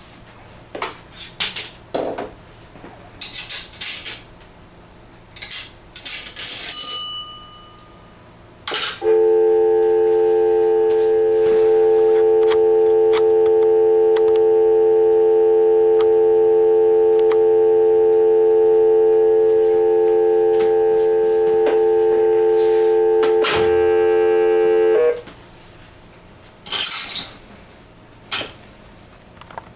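Mechanical clicks and clunks from the Western Electric 236G payphone's handset and hook, with a brief ring about seven seconds in. Then a loud, steady dial tone comes through the phone for about sixteen seconds and cuts off suddenly with a rattle of clicks, followed by two more knocks.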